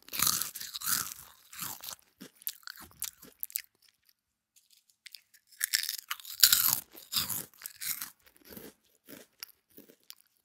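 Irregular crunching and rustling noises in uneven bursts, with a quiet stretch of about a second and a half near the middle.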